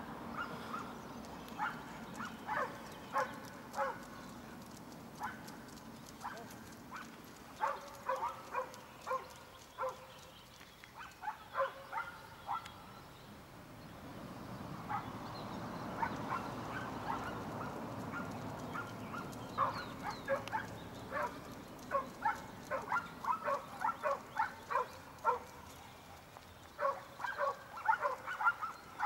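A dog barking repeatedly in short, sharp barks that come in bursts of several at a time, over a steady low background hum.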